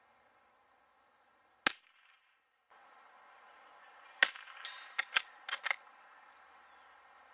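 Savage Mark II bolt-action .22 LR rifle firing Piney Mountain tracer rounds: two sharp shots, about a second and a half in and about four seconds in. The second shot is followed within about a second and a half by several quick, smaller clicks and knocks.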